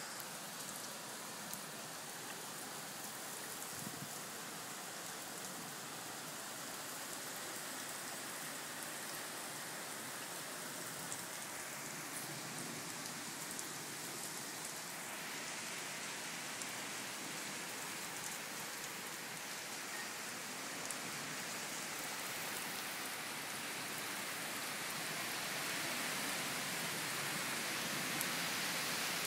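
Heavy hurricane rain pouring steadily onto a wooden deck and the yard, growing louder near the end.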